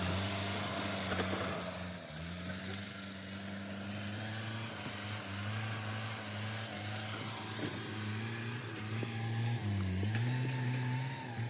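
LKT forestry skidder's diesel engine working under load as its front blade digs and pushes soil. The engine note sags and picks up again several times, most clearly about ten seconds in.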